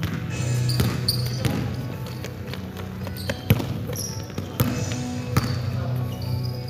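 A basketball bouncing on an indoor gym floor during play: irregular sharp thuds, with short high squeaks in between.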